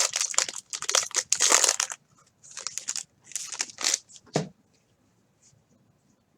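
Baseball card pack wrapper being torn open and crumpled, a dense crinkling for about two seconds, then a few softer crinkles and one sharp snap about four seconds in.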